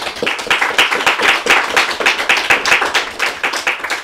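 Audience applauding, with the individual claps distinct.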